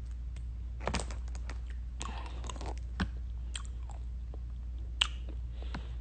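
Faint scattered clicks and crackles, a few sharper ones about a second apart, over a low steady hum.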